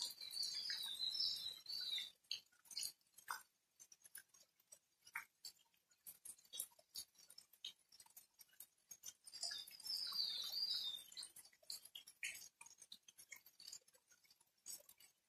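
Rain dripping: an irregular patter of separate drops landing close by. A high, wavering call comes in twice, near the start and again about ten seconds in.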